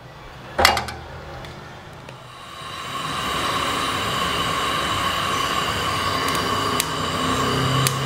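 Gas brazing torch: a sharp click about half a second in, then a steady hissing rush of flame that grows louder about two to three seconds in, as it heats a copper refrigerant pipe joint at the AC compressor for brazing.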